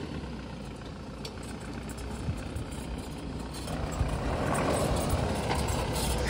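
Force Gurkha's diesel engine running as the off-roader crawls down a rocky dirt track toward the listener, growing louder after about three and a half seconds, with a few sharp clicks of stones under the tyres.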